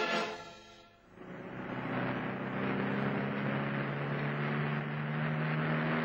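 Background music fades out, then street traffic noise rises about a second in: a motor vehicle's engine running at a steady speed with a low, even hum.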